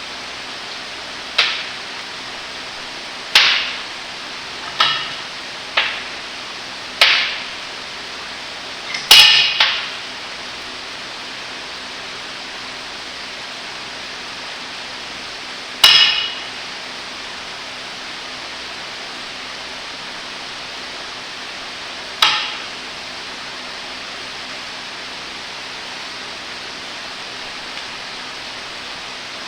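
Sharp, ringing metal-on-metal blows, like a hammer striking steel parts of a small hydraulic cylinder being taken apart. There are about ten blows, spaced a second or two apart at first, with a quick run of three about nine seconds in, then two single blows several seconds apart. A steady hiss runs underneath.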